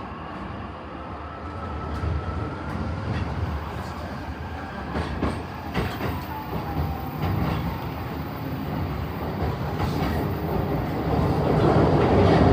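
E233-series commuter train running on the line, heard from inside the car: a steady rumble with wheels clicking over rail joints and a faint whine. It grows louder near the end.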